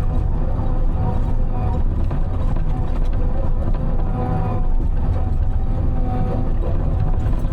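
Timberjack 608 tracked harvester's diesel engine running steadily as the machine tracks along, heard inside the cab: a low rumble with a steady whine above it.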